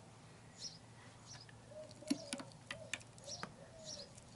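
Faint pigeon cooing with small birds chirping now and then, and a few sharp metal clicks from a ratchet and the motorcycle's side stand being handled about halfway through.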